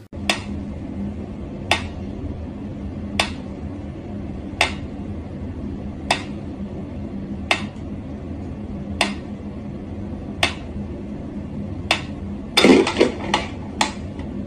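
Mechanical pendulum metronome ticking slowly and evenly, one tick about every second and a half. Near the end, a brief clatter of louder knocks.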